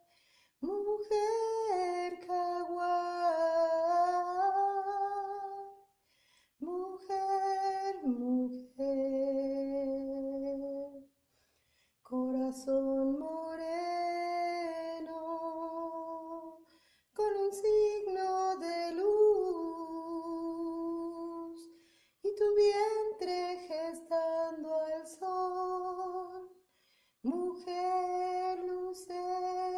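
A woman singing a slow, sustained song in long phrases of a few seconds each, about six in all, with short pauses for breath between them.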